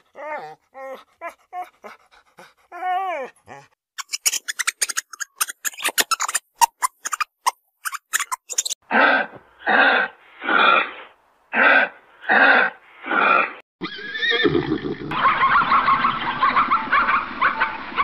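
A run of animal sounds: short whining yelps, then a rapid crackle of clicks, then six evenly spaced hoarse calls, and a long rough call near the end.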